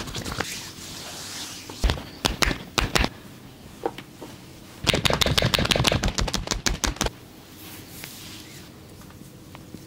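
Hands striking skin in percussive massage slaps: about six separate sharp slaps around two to three seconds in, then a fast drumming run of slaps lasting about two seconds.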